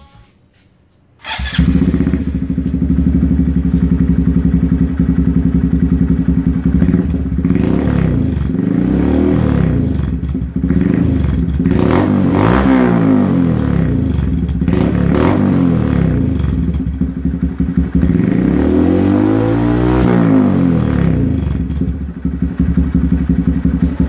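Honda Grom's 125 cc single-cylinder engine, breathing through a new Zoom Loop aftermarket exhaust, starts about a second in and idles. It is blipped on the throttle several times, with two longer revs, one in the middle and one near the end, the pitch rising and falling each time.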